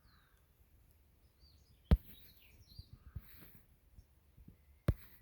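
Birds chirping faintly in short calls, with two sharp clicks, about two seconds in and again near the end.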